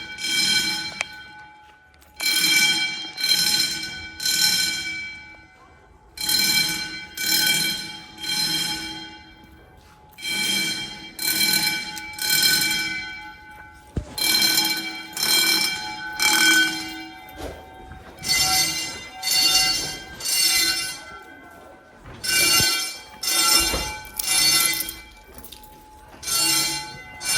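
Wheelock 10-inch fire alarm bells ringing in a temporal-three pattern: three rings, a pause, repeating about every four seconds. This is the building evacuation signal of a fire alarm.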